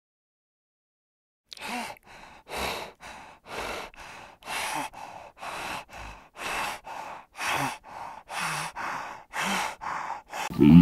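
Spotted hyena breathing heavily: rhythmic breaths, a louder one about once a second with softer ones between, starting about one and a half seconds in.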